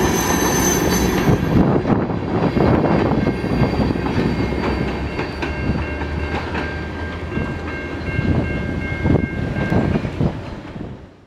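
Freight train of tank cars rolling past, its wheels clacking over the rail joints with a heavy rumble that slowly gets quieter as the end of the train passes. A thin steady high tone comes in over the second half, and the sound fades out at the very end.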